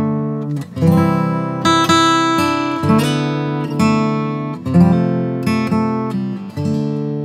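Acoustic guitar music: strummed chords that ring and fade, with a new strum every second or so.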